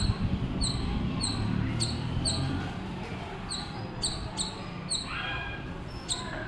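Squirrel calling: a steady run of short, high chirps that drop in pitch, about two a second.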